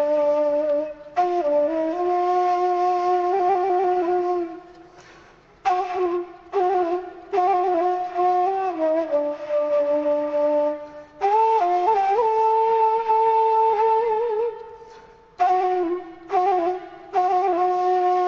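Background music: a solo flute-like wind-instrument melody of long held notes with quick wavering ornaments, played in phrases with short breaks between them.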